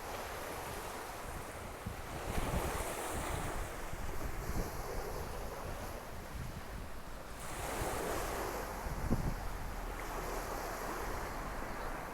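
Sea waves breaking and washing onto a beach, the surf swelling twice, with wind buffeting the microphone.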